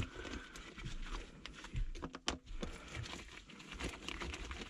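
Scattered light clicks and taps of a hand tool working the band clamps on the ejector pump's pipe coupling, with a couple of sharper clicks about two seconds in.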